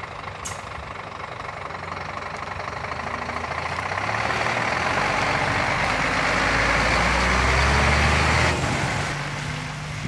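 Scania 380 hook-lift truck's 11-litre six-cylinder diesel running as the truck drives past, growing steadily louder as it nears. Its note drops away suddenly about eight and a half seconds in.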